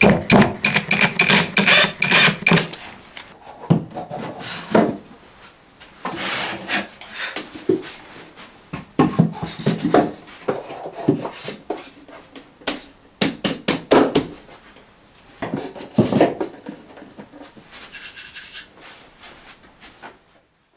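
Irregular knocks and scrapes of wooden floating shelves and their metal rod brackets being fitted to a wall. A hand screwdriver scrapes a bracket screw in the first couple of seconds.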